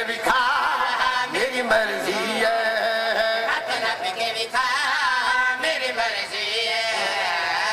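A man's voice chanting a melodic, sung recitation into a microphone, with wavering pitch and long held notes.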